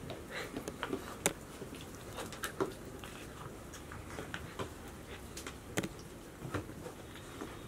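Golden retriever puppies playing and wrestling: scattered light taps and clicks of paws and claws on the floor, with soft scuffling in between.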